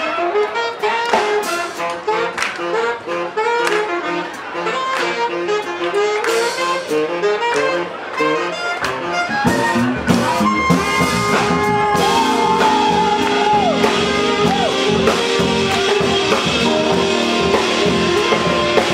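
Live street band led by saxophones and other brass, playing a melody of quick notes. About ten seconds in the music turns fuller and louder, with a bass line under long held notes.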